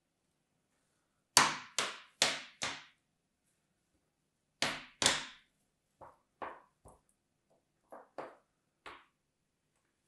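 Fingers tapping on hollow plastic sand moulds: four quick sharp taps, then two more, then several softer ones.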